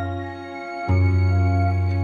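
Slow, calm background music: sustained chords over a steady deep bass note, with a new chord coming in about a second in.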